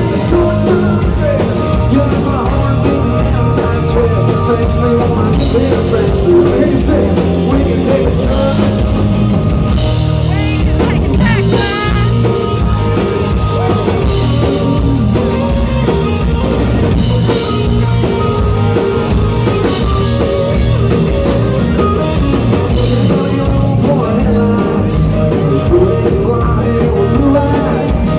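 Live country band playing at full volume: strummed acoustic guitar and drum kit, with a male lead vocal.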